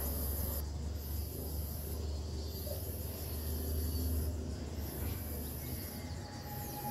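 A high-pitched insect trill, coming in long pulses with short breaks, over a steady low rumble.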